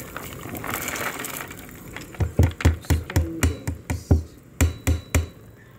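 String beans and mung bean sprouts tipped from a dish into a pot of boiling broth with a soft hiss. This is followed by a quick, uneven run of about a dozen sharp knocks over some three seconds.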